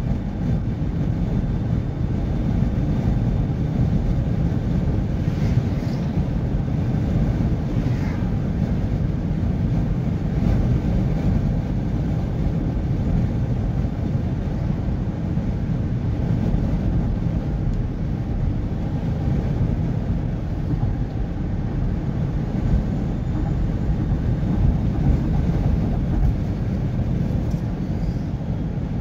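Steady low rumble of tyre and engine noise heard inside a vehicle cruising at highway speed.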